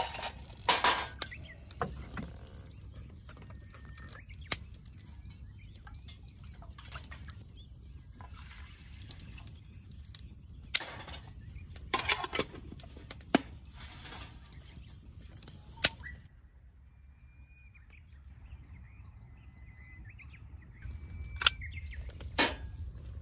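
Aluminium mess tin filled with water and handled on a metal mesh camp table: a short pour near the start, then scattered clinks and knocks as the tin and its lid are moved and set down on the mesh.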